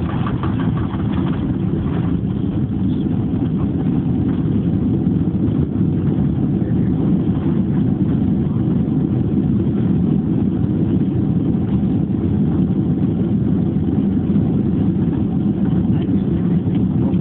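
Steady loud roar and rumble inside the cabin of a Boeing 767-300 as it lands, the engines and wheels on the runway heard through the cabin. The noise builds over the first couple of seconds and then holds.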